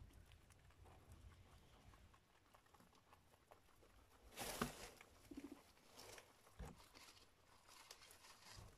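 Guinea pigs eating hay: faint crackling and rustling of dry hay as they chew and nose through it, with a louder rustle about four and a half seconds in and a brief low purr-like trill just after.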